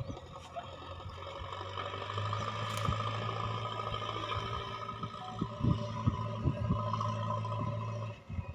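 JCB 3DX backhoe loader's diesel engine running steadily, with a few sharp knocks about five to seven seconds in. The engine hum drops away shortly before the end.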